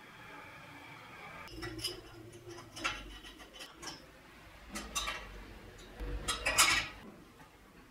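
Light metallic clinks and taps of steel parts being handled and set down: a few scattered clicks, with the loudest cluster near the end.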